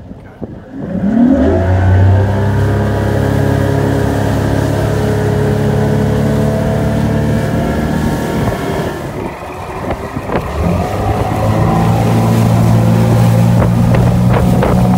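135 hp two-stroke V6 Mercury outboard opened to full throttle from near standstill: the revs climb about a second in, then hold high and steady as the boat gets up on the plane. The note sags briefly around nine seconds in, then runs hard again.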